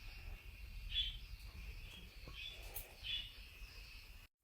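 Faint short high-pitched chirps, a few times, over a quiet low background hum, with a couple of soft clicks.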